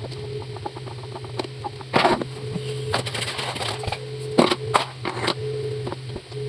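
Knocks, clicks and clatter of tools and metal parts being handled during table fan repair, over a steady low hum.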